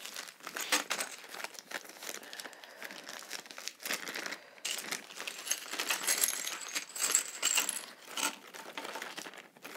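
Toy play coins clinking and a clear plastic packaging bag crinkling and rustling as it is handled and torn open, a busy run of small clicks and rustles.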